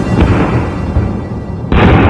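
Aerial fireworks going off: a dense rumble of bangs and crackle, with a new loud burst starting suddenly near the end.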